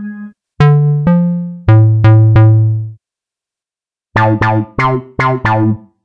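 HY-Poly software synthesizer presets being auditioned. A held organ chord cuts off just after the start. Then a bass preset plays five plucked notes with sharp attacks that die away, and after a pause a second bass preset plays five short clipped notes in quick succession.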